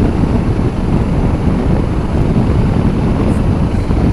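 Motorcycle under way: a steady low rumble of engine and wind noise over the bike-mounted camera.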